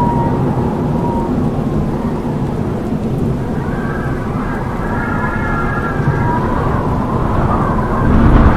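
Strong howling wind: a dense, steady rush with wavering whistling tones that rise and fall, and a louder gust near the end.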